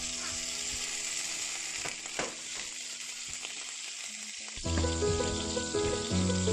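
Butter sizzling as it melts in a hot frying pan, with a spatula stirring it and a few sharp scrapes about two seconds in. Background music comes in over the sizzle about two thirds of the way through.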